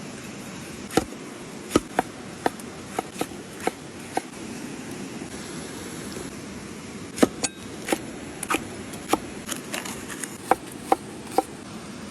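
Knife chopping on a cutting board: sharp knocks in two runs, about one every half second, over a steady hiss.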